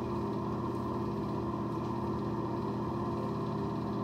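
A steady, unchanging mechanical hum from a small electric motor running.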